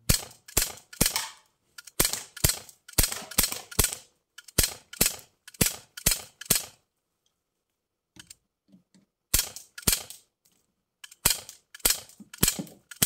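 Rapid shots from a CO2-powered BB pistol: about twenty sharp cracks in quick, irregular strings, with a pause of about two and a half seconds in the middle.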